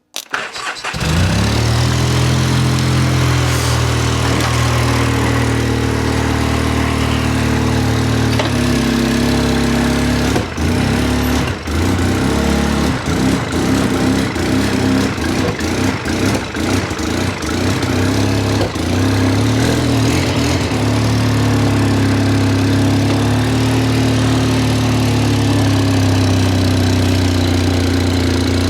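Engine of a project machine that needs a new starter relay starts about a second in and keeps running. It runs uneven and choppy for several seconds in the middle, then settles into a steady idle.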